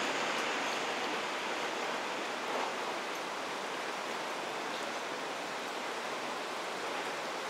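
Steady rushing noise from an Odakyu electric train running on the tracks, slowly fading.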